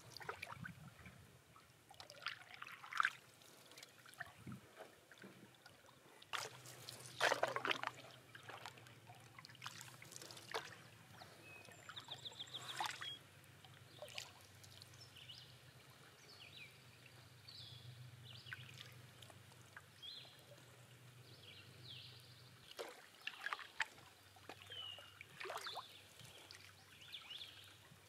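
Canoe paddle strokes: water pouring and trickling off the paddle blade, with soft splashes every few seconds over a quiet lake.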